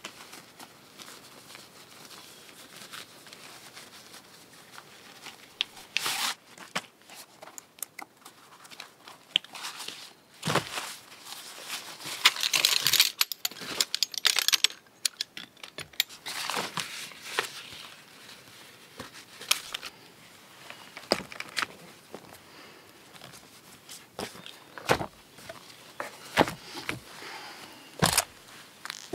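Compact folding camp chair being put together by hand: nylon stuff sack and seat fabric rustling and crinkling, with sharp clicks of the folding poles snapping into the frame's hub. A longer, louder burst of rustling comes about halfway through.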